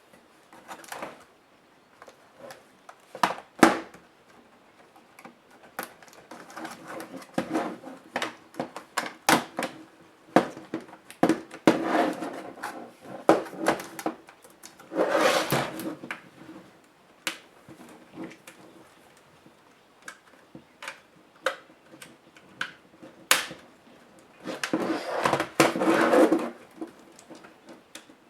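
Compaq F700 laptop being taken apart by hand: irregular sharp clicks and knocks of plastic and metal parts, with a few longer scraping, rustling stretches.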